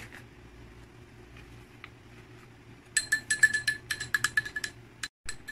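Metal spoon clinking quickly and repeatedly against the inside of a glass tumbler while stirring gelatin to dissolve it. The clinking starts about three seconds in, after a quiet stretch with only a faint low hum.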